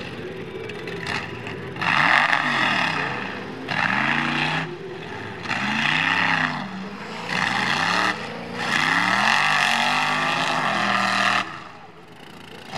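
Big-block V8 of a mud-racing truck revving hard in five bursts, the pitch climbing and falling with each stab of the throttle; the last burst is the longest and ends with the engine dropping back near the end.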